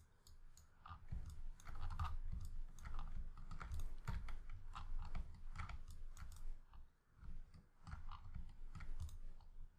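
Irregular clicks and soft low knocks close to the microphone, starting about a second in and going on, with short lulls, throughout.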